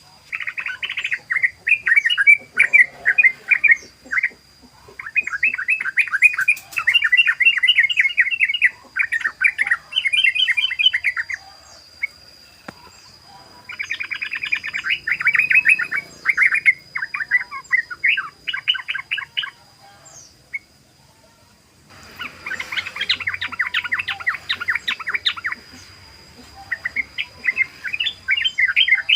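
Yellow-vented bulbul singing its rapid, continuous 'ropel' song: fast chattering runs of notes in bouts of a few seconds, broken by short pauses.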